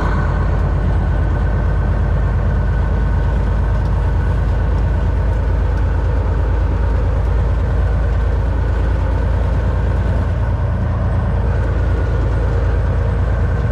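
Steady drone of a 2022 Volvo VNL 760 semi truck's engine and road noise heard from inside the cab while cruising.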